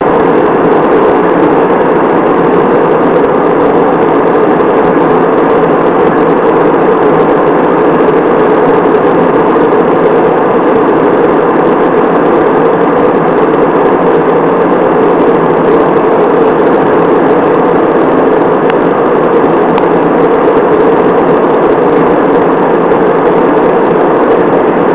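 Steady, loud cabin roar of a jet airliner in flight, engine and airflow noise heard from a window seat.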